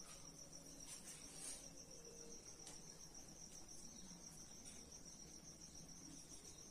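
Near silence with a faint, steady, high-pitched trill throughout, and a few soft marker strokes on a whiteboard.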